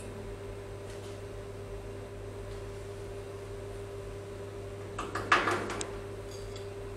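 Metal spoons scraping and tapping against each other and the baking tray while dropping biscuit mixture, a short clatter of several clicks about five seconds in. A steady kitchen appliance hum runs underneath.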